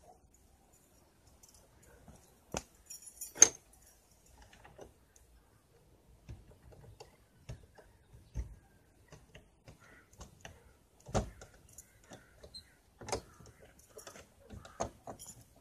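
Scattered clicks and knocks of objects being handled, with a sharp jangle about three seconds in as the loudest sound and two heavier knocks later on.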